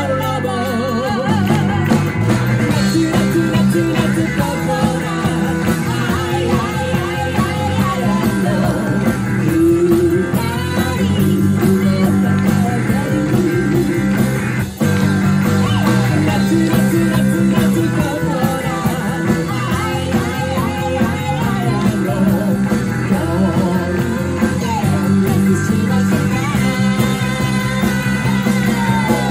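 Live rock band with electric guitar, bass and drums playing a pop song, two singers trading vocals in a duet.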